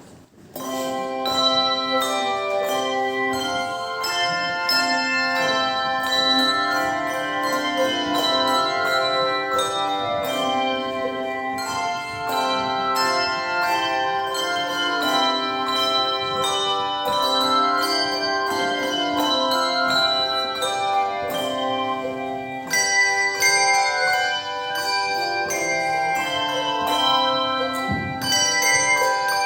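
An ensemble of tuned bells playing a melody with chords, many struck notes ringing on over one another; it starts about half a second in.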